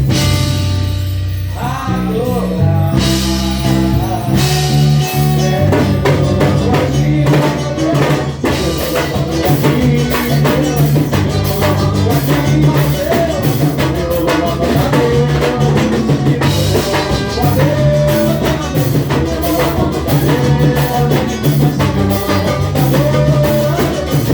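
Drum-led music: drums and percussion playing a steady beat under pitched instrumental parts.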